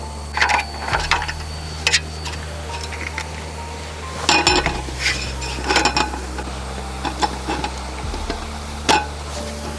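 Metal cookware and utensils clinking and knocking, about eight sharp strikes spread through, over soft background music.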